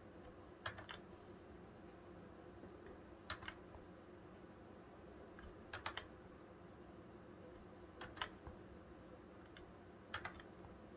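Keys of a Xenics STORMX TITAN SE membrane keyboard pressed five times, about two and a half seconds apart, each press a quick pair or cluster of clicks. The presses cycle the keyboard's LED backlight colour.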